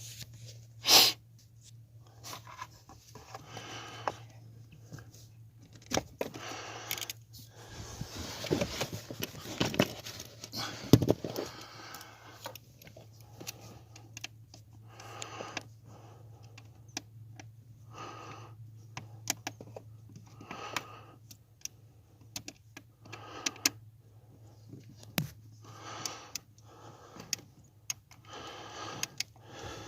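Irregular clicks, scrapes and light rattles of parts and tools being handled, over a steady low hum.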